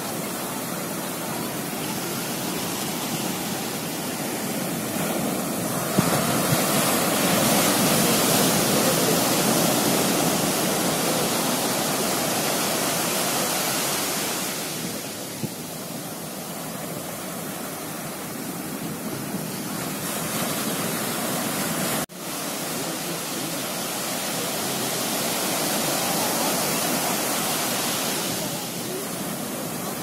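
Sea surf breaking and washing up a sandy beach: a steady rush of foaming water that swells louder and falls back over several seconds at a time. There is a momentary break in the sound about two-thirds of the way through.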